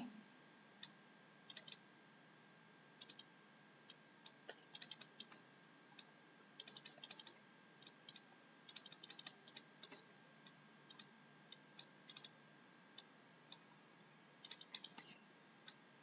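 Faint, irregular clicks and taps of a stylus on a pen tablet as words are handwritten, over a faint steady high tone.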